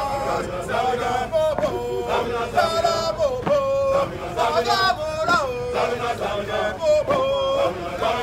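A squad of marching police officers chanting a marching song together. The group sings repeating phrases with long held notes.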